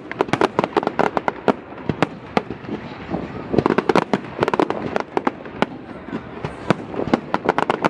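Fireworks display: a rapid, irregular barrage of bangs and crackling bursts, several a second, thickest about halfway through and again near the end.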